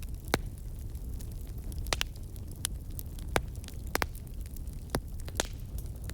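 Campfire crackling: a steady low rumble with irregular sharp pops and snaps, roughly one every half second or so.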